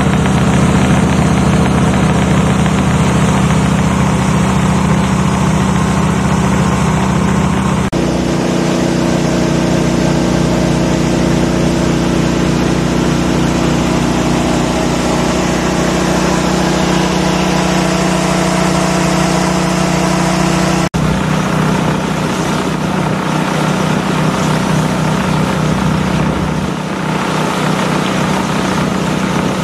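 Outboard motor pushing a canoe along at speed, a steady engine tone over the rush of water and spray along the hull. The engine note changes abruptly about 8 seconds in and again around 21 seconds.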